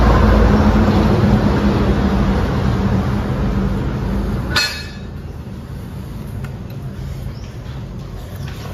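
A loud, steady noise with a low hum fades slowly, then drops away suddenly with a click about halfway through. After that it is quieter, with a few light clinks of spoons and chopsticks against soup bowls.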